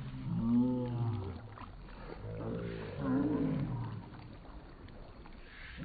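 A low voice making two drawn-out, wavering groaning sounds without words, about two seconds apart.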